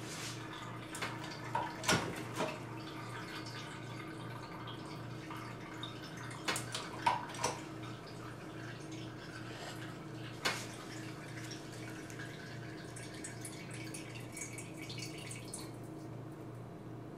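Hand-pumped hydraulic juice press squeezing carrot pulp between two plates: a few scattered clicks and knocks from the jack handle and steel tray, with juice dripping, over a steady low hum.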